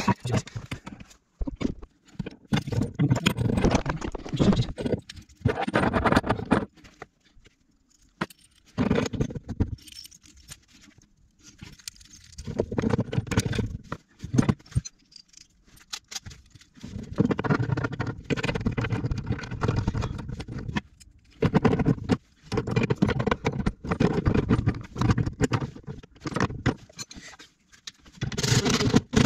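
Brass compression fittings and hand tools clinking and scraping in repeated bursts with short pauses, as a tee and fittings are worked onto copper pipe.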